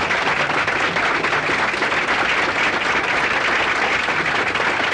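Audience applauding steadily: many hands clapping in a dense, unbroken patter at an even, fairly loud level.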